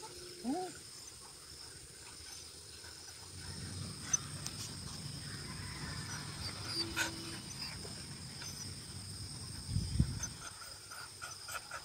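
A German shepherd gives one short whine about half a second in, over a steady high-pitched insect drone. From about three seconds in a low rumbling noise comes in, with a dull thump near the end.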